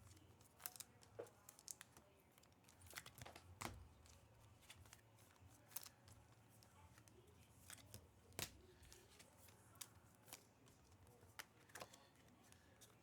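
Faint handling of trading cards and their packs: scattered light clicks and short rustles at irregular intervals as cards are slid and flipped.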